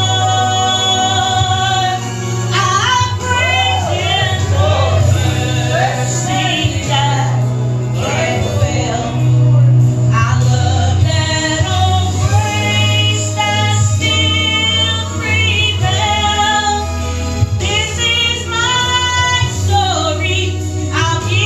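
Gospel song sung by a woman with vibrato over instrumental accompaniment with a steady low bass line.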